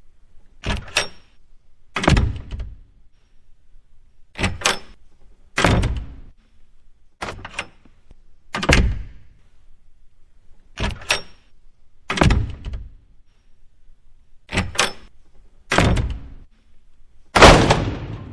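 A series of about eleven loud thumps or knocks, roughly one every second or two, some struck twice in quick succession; the last, near the end, is the loudest and rings on longest.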